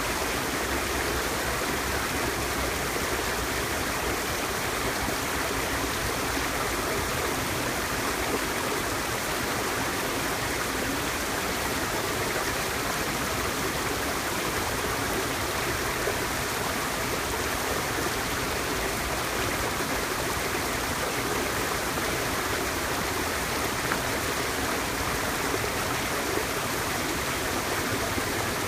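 Mountain stream running over rocks, a steady rushing and gurgling of water.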